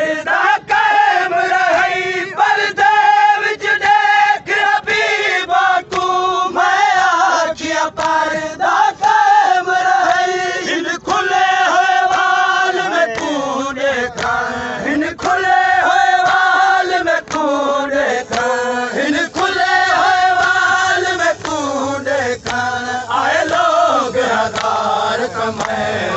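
Men chanting a noha, a Shia lament, in a slow melodic voice with a wavering pitch. The chant runs in phrases and is amplified through a loudspeaker.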